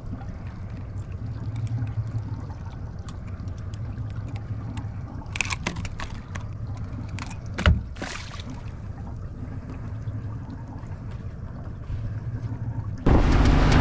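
Boat on open water: a steady low rumble, with scattered small clicks and splashes at the side as a tripletail is handled on a lip grip and let go. There is one sharp knock about eight seconds in, and loud music starts just before the end.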